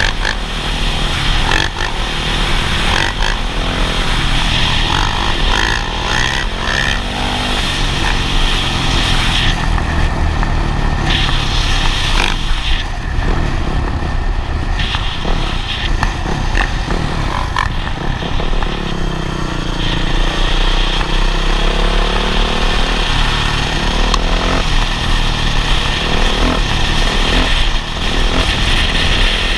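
Several dirt bike engines running and revving at speed, the pitch rising and falling as the riders work the throttle.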